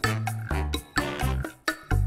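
Background music with a steady beat of short bass notes and percussion.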